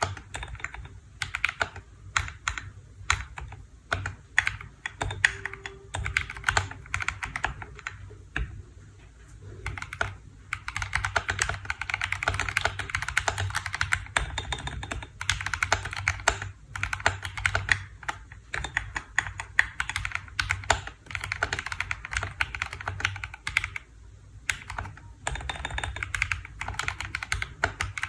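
Typing on a KBDfans D65 mechanical keyboard: fast, continuous keystroke clacks with two brief pauses, about a third of the way in and near the end.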